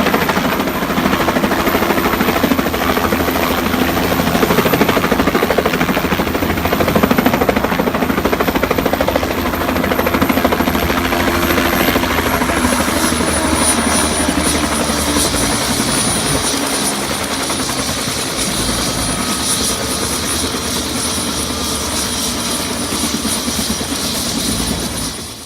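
Helicopter landing close by: rotor and turbine running loud and steady. A high whine drops in pitch about halfway through, and the sound eases a little after.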